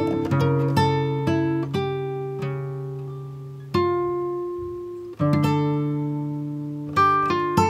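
Background music on plucked guitar: notes and chords ring out and slowly fade, with fresh chords struck about four, five and seven seconds in.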